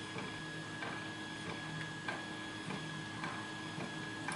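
Small irregular metallic ticks and scrapes of a short hook pick probing and lifting the pins of a Chris Ahrens lock under tension, over a steady faint hum and a thin high whine.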